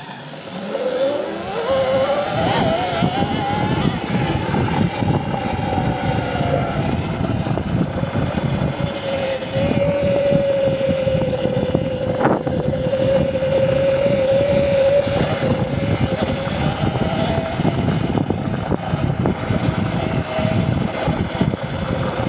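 Electric dirt bike's motor whine rising in pitch as it accelerates over the first few seconds, then holding fairly steady with small swells, over a rough rushing noise of riding. A single sharp click about halfway through.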